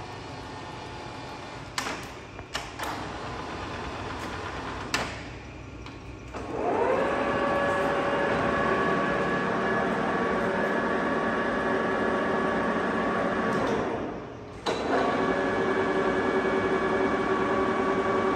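TOS Trens SN-50C lathe's spindle and headstock gearing starting up about six seconds in with a rising whine, then running steadily; it stops briefly and starts again near the end. A few clunks of the controls being shifted come before it starts.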